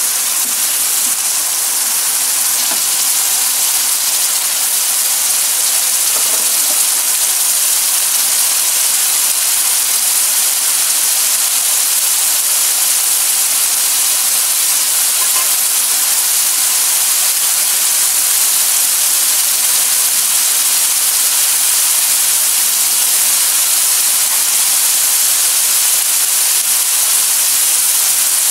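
Balado chili sauce sizzling and bubbling in a wok around two pieces of fried fish, a steady hiss. It is simmering down so the seasoning soaks into the fish.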